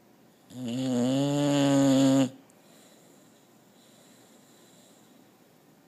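A single long, pitched snore lasting nearly two seconds, starting about half a second in and cutting off sharply.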